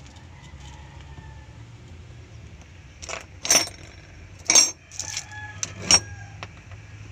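Sharp metal clinks, about five in quick succession a few seconds in, as the gear-shifter assembly's metal parts are worked by hand, over a steady low hum.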